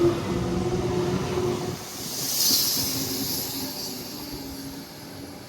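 Electric suburban passenger train passing through the station: rail rumble with a steady motor whine, then a burst of hiss about two seconds in, the sound fading as it moves away.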